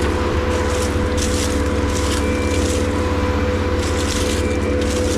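An engine running steadily at a constant speed, with intermittent hissing or rustling bursts over it.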